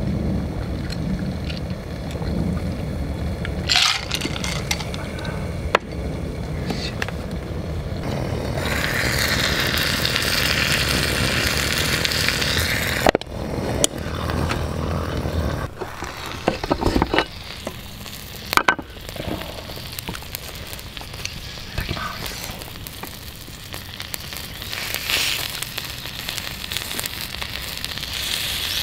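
Camp cooking: a banana stuffed with chocolate sizzling and crackling in a hot hinged double pan, with sharp clicks and knocks of utensils now and then.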